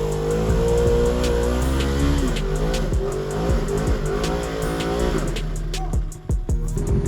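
Side-by-side UTV engine running, its revs rising and falling several times, with music playing over it.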